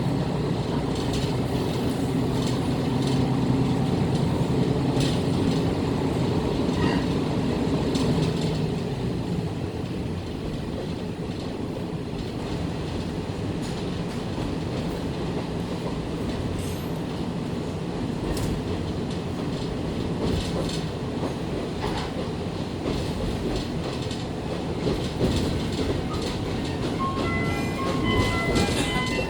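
Diesel railcar running, heard from inside the car as it pulls away. The engine note is strongest for the first eight seconds or so, then eases as the car rolls on with scattered wheel clicks over the track. Near the end a few electronic chime notes begin: the JR Shikoku chime that comes before the onboard announcement.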